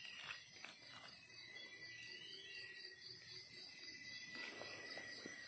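Faint forest insects trilling steadily and high-pitched, with a few light clicks in the first second.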